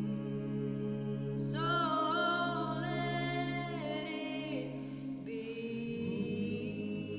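Slow ambient music: a steady low drone with long held, choir-like notes above it that come in about a second and a half in and step to new pitches a few times.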